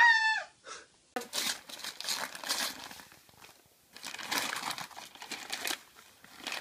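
Paper wrapping crinkling and tearing as a present is unwrapped by hand, in two spells with a lull of about a second between them. A short high-pitched vocal sound comes right at the start.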